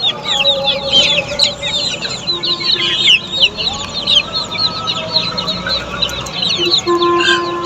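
A large brood of Black Australorp chicks peeping, many short, high, falling peeps overlapping without a break.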